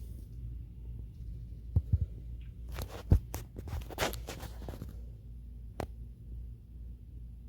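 A low steady hum, broken about two seconds in by a few seconds of rustling and sharp clicks, with one louder snap near the middle and a single further click a little later.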